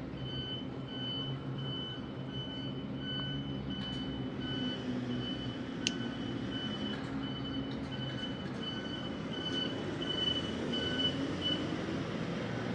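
Vehicle reversing alarm beeping about twice a second over a low steady engine hum. The beeping stops about a second before the end. There is one sharp click about six seconds in.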